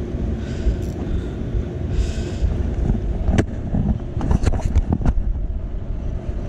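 Wind rumbling on the microphone over open water, with two short hissing gusts in the first half and a quick run of sharp clicks a little past the middle.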